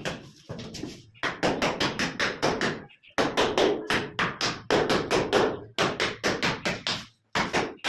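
Rapid tapping on a ceramic wall tile, about five taps a second in runs broken by short pauses, as the tile is tapped down to bed it into its mortar.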